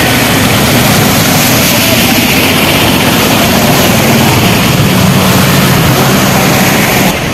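Vehicle engines running steadily under a loud hiss of rushing, splashing water as traffic drives through floodwater over a road.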